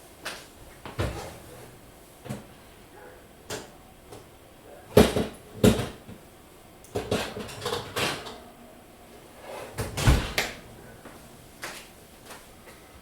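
Kitchen clatter of an oven being opened and a metal muffin tin taken out: a dozen or so separate knocks and clunks, the loudest two about five seconds in and another near ten seconds.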